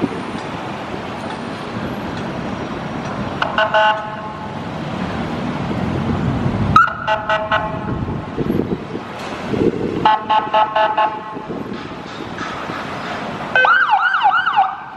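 Busy city road traffic running, with a horn sounding in quick repeated pulses three times, about four, seven and ten seconds in. Near the end a siren warbles rapidly up and down.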